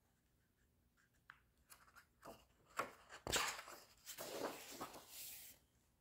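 Paper page of a hardcover picture book being turned: a few soft ticks, then crinkling and rustling for about three seconds, loudest a little past the middle.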